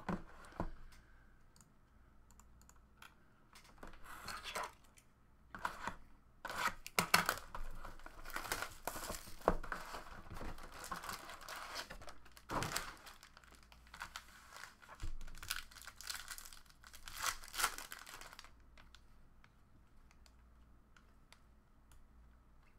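Hobby box and card pack wrappers of 2018-19 Panini Prizm Basketball being opened by hand: irregular bursts of tearing and crinkling with sharp clicks, stopping a few seconds before the end.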